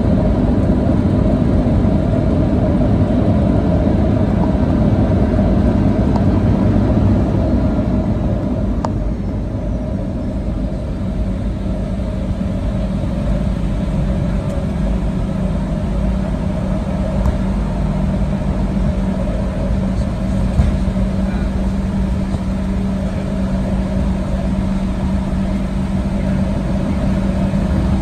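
Cabin noise inside a Boeing 737-800 rolling along the ground, its CFM56-7B engines running near idle: a steady roar that eases slightly partway through, with a steady low hum coming in about halfway.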